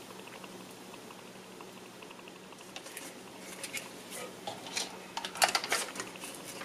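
Small irregular clicks and taps of hands handling a soldering iron, a solder spool and the plastic instrument-cluster housing, starting about three seconds in and growing busier near the end, over a low steady hum.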